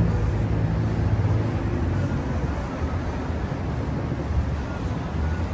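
Street traffic: a motor vehicle's engine running close by, fading over the first couple of seconds into a steady low rumble of city traffic.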